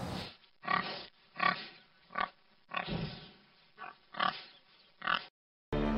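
Pig grunting, about seven short grunts spaced under a second apart. The grunts stop, and music starts just before the end.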